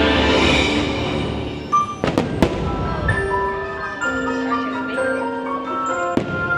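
Festive Christmas show music with bell-like mallet tones and held notes. A few sharp bangs cut through it: two close together about two seconds in and one near the end.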